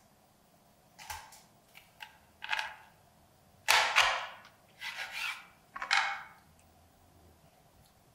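Chef's knife cutting through raw chicken joints on a wooden cutting board: about six short cuts, the loudest about four seconds in.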